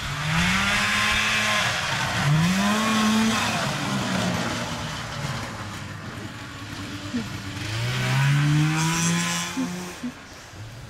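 Snowmobile engine accelerating in three bursts of throttle, its pitch rising each time, over a steady rushing hiss.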